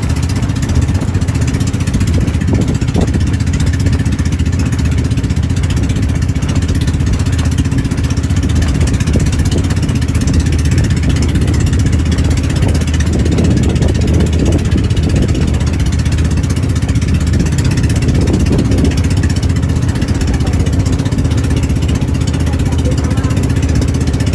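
Engine of a motorized outrigger boat (bangka) running steadily underway, with water rushing past the hull and bamboo outriggers.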